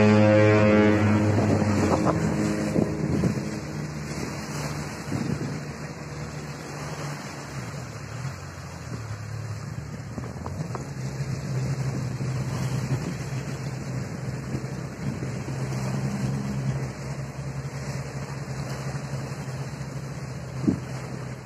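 A ship's horn sounds a deep, steady blast that cuts off about a second and a half in. After it, an outboard motor on an inflatable boat runs steadily under way, with water rushing past and wind noise, and there is a short knock near the end.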